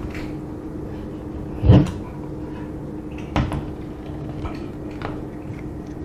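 Handling noise from an AKM-pattern rifle and a bulky NSP-3 night vision scope on its side rail: one heavy thump about two seconds in, then a sharper click and a few faint knocks, over a steady low hum.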